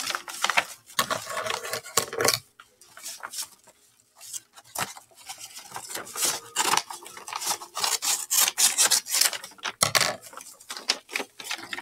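Scissors cutting through a brown paper bag, with the stiff paper rustling and scraping as it is held and turned; a series of short snips and rustles with a brief pause about three seconds in.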